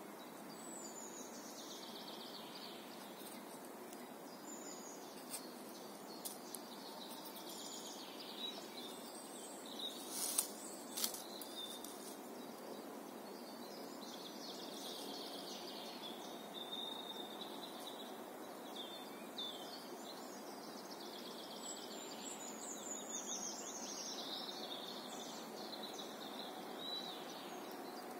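Birds singing in woodland over a steady outdoor hiss, with a few sharp clicks about ten seconds in.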